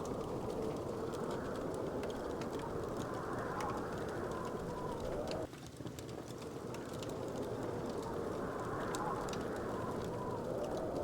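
Wood fire crackling, with scattered sharp pops and snaps over a steady low rushing background. The rushing layer drops off abruptly about five and a half seconds in, then swells back.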